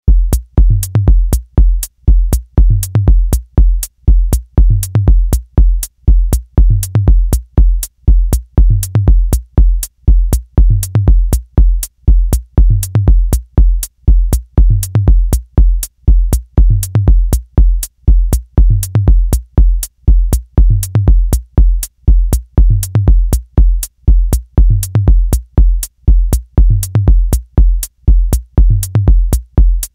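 Background electronic music with a steady drum-machine beat and heavy bass, about three beats a second, in a pattern that repeats every two seconds or so.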